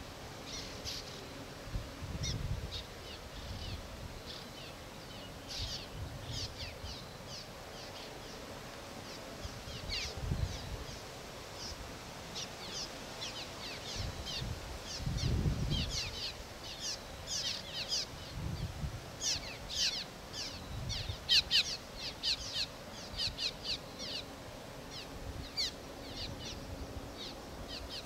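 Swallows calling around their mud nests: many short, quick down-slurred chirps, sparse at first and growing thicker and louder in the second half. Occasional low rumbles sound beneath them.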